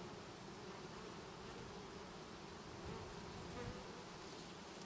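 Honeybees from freshly installed packages buzzing around the hive in a steady, even hum, with a couple of brief louder moments about three seconds in.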